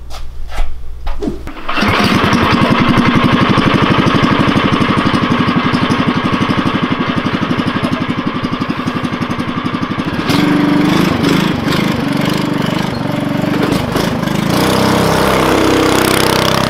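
Stage-one Tillotson 212cc single-cylinder go-kart engine: a few short knocks, then it starts about two seconds in and runs at a steady, fast-pulsing idle. About ten seconds in the note turns louder, lower and uneven as the throttle opens and the kart pulls away.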